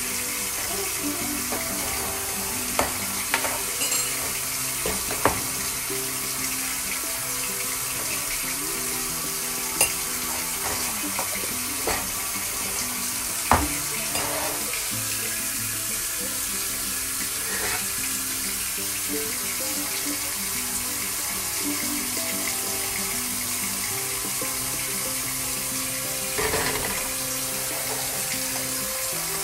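Soft background music over a steady hiss, with a few sharp clinks of a metal spoon against a ceramic mug as cocoa powder is spooned in and stirred; the loudest clink is about thirteen seconds in.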